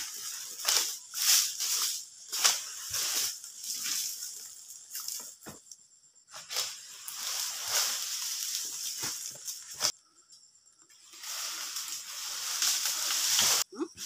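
Dry palm fronds and leaf litter rustling and crackling underfoot and under handling, in short crunches about twice a second, then a more even rustle, with a second of silence about ten seconds in.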